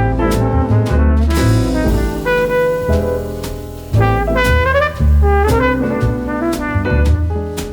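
Background music: a jazzy tune with brass instruments over bass and drums.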